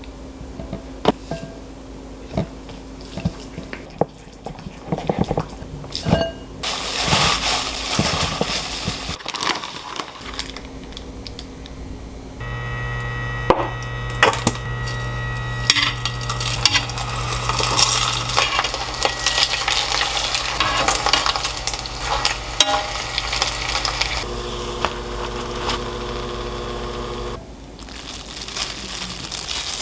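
Kitchen cooking sounds: dishes and utensils clicking and knocking, food sizzling in a pan, and a steady appliance hum through the middle part.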